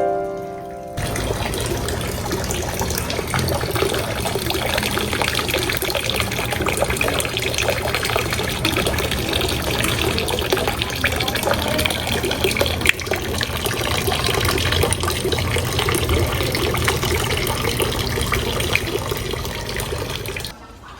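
Steady rush of running, splashing water. It cuts in about a second in and stops suddenly just before the end.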